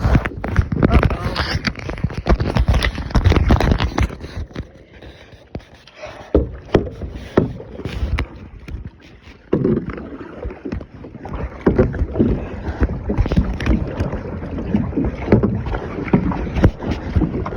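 Kayak being paddled: paddle strokes in the water with sharp knocks and splashes, coming in uneven bursts, with a quieter stretch about five to nine seconds in.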